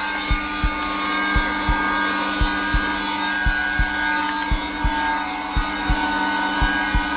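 Zelmer vacuum cleaner running on its lowest setting, a steady hum with a high whine, under a heartbeat thumping in pairs about once a second.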